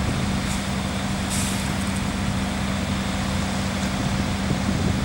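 Ready-mix concrete truck's diesel engine running steadily at a constant pitch, with a short hiss about a second and a half in.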